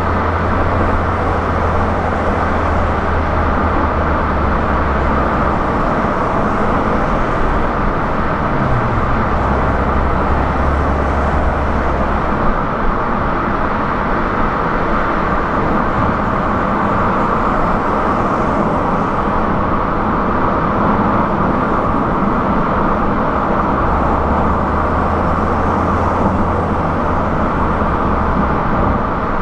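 Car driving at speed on a highway: steady tyre and road noise, with a low engine drone that fades and returns a few times.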